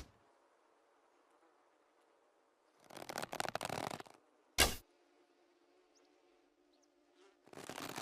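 Manchu bow being drawn, a scraping rustle of about a second, then loosed with a sharp loud string snap about four and a half seconds in. Another draw begins near the end.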